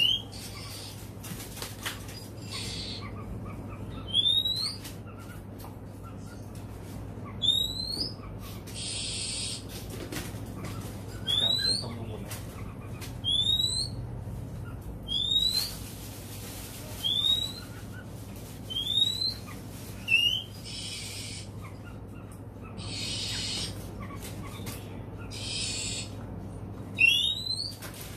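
Caged oriental magpie-robin calling: about ten short rising whistles, roughly one every two seconds, with several harsh, hissing notes of about a second each in between.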